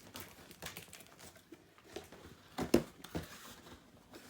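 Handling noises of boxed items and packaging: light rustling and scattered small clicks, with one sharp knock about two and a half seconds in.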